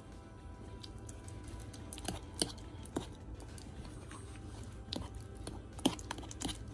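Scattered light clicks and taps from kitchen utensils and bowls being handled while batter ingredients are prepared, over faint background music.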